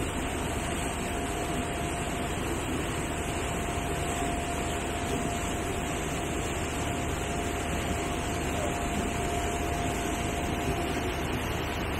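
Steady, even running noise of a moving vehicle, with a constant thin whine.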